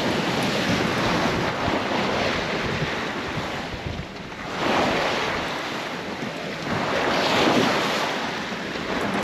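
Sea rushing and splashing along a sailing yacht's hull under way in open-ocean swell, with wind buffeting the microphone. The wash swells up twice, about halfway through and again a few seconds later.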